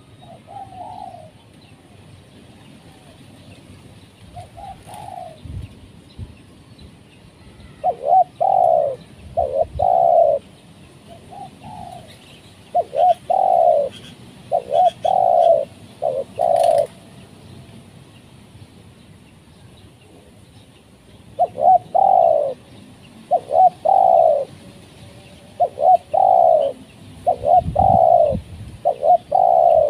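Spotted dove cooing: a few faint coos at first, then loud bouts of repeated cooing phrases, several notes each, from about eight seconds in.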